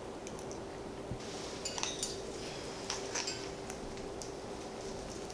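African grey parrot's beak working on a cricket it is eating: a scatter of small, sharp clicks and crunches, bunched in two short flurries.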